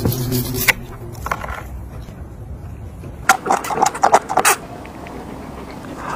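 A quick run of crunchy, wet biting and mouth noises, about three seconds in and lasting just over a second, as a man bites roast beef off the bone.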